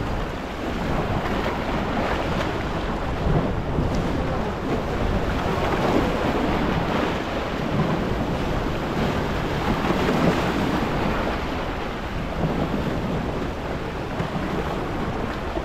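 Wind on the microphone over sea waves: a steady rushing noise that swells and eases.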